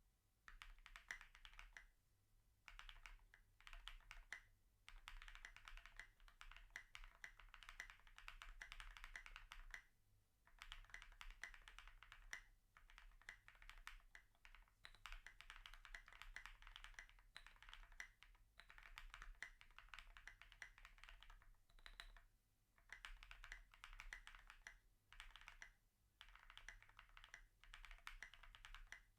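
Typing on a Meow 65 gasket-mount mechanical keyboard with lubed, filmed Durock POM switches on an FR4 plate with poron foam: runs of fast keystrokes in bursts of a few seconds, broken by short pauses.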